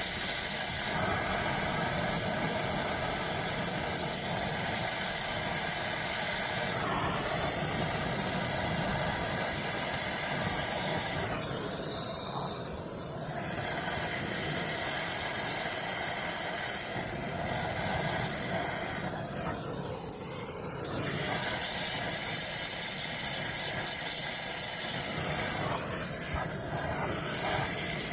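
Brazing torch flame hissing steadily while a copper refrigerant line joint is brazed, with a few brief dips in loudness.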